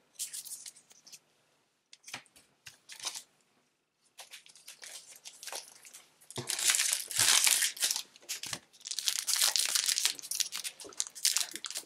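A Disney Lorcana booster pack's plastic wrapper crinkling and being torn open, in scattered crackles that become louder, denser rustling about six seconds in.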